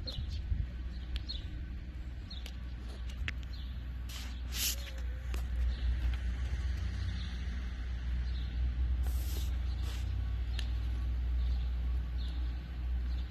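Wind rumbling on the microphone, with faint bird chirps and two brief hissing bursts, about four and nine seconds in.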